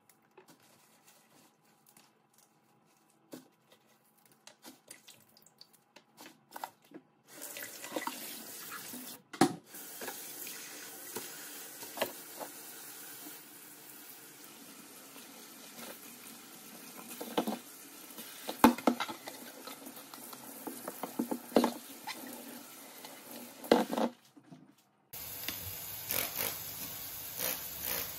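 A few light clicks and taps, then a kitchen tap running into the sink from about seven seconds in, with knocks and clatter of things being handled under the water. The water cuts off briefly near the end and comes back on.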